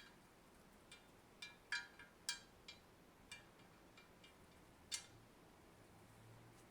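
Light, irregular clicks and clinks of small metal drill-press parts being handled and fitted together, about ten in all, the sharpest about two and five seconds in.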